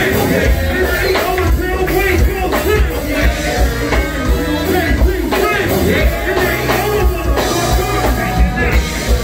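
Live band playing loud music with a steady beat: drum kit, bass and keyboard, with vocalists singing into microphones over the top.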